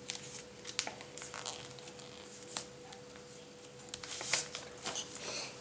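Folded sheet of paper rustling and brushing against a hard countertop as fingers press and smooth the creases of a paper plane, with scattered light ticks and a faint steady hum underneath.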